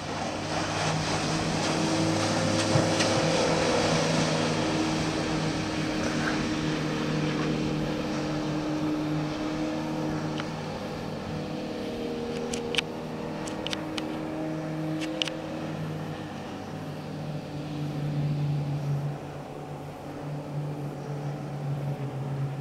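Outboard motor of a rigid inflatable boat running at speed, its engine note shifting slightly as the boat turns and passes, loudest near the start and swelling again later. A few short sharp high clicks come about halfway through.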